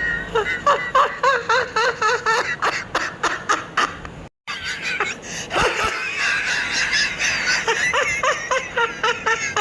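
A person laughing in rapid, high-pitched runs of short laughs, about four or five a second. The laughter breaks off for a moment about four seconds in, then picks up again.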